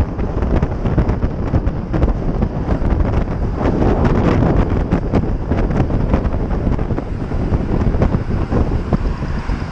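Wind buffeting the microphone on a bicycle ridden fast: a loud, steady low rush with constant flutter.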